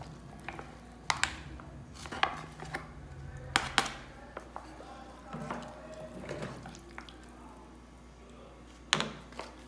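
Metal kitchenware clanking against a cooking pot as canned mixed vegetables go in with the chicken and rice: several sharp knocks with a short ring, in clusters about a second in, around two and a half to four seconds in, and once more near the end.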